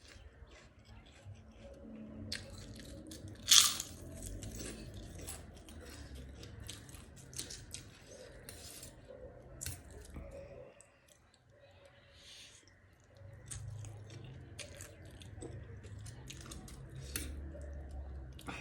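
Close-up chewing and crunching of food, with a run of small crackles and one loud crunch about three and a half seconds in.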